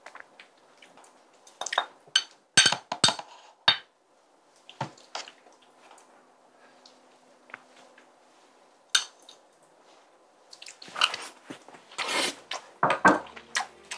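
Chopsticks and a spoon clicking and scraping against plastic takeaway containers and dishes while tteokbokki is picked up and eaten, with a denser run of wet eating sounds near the end.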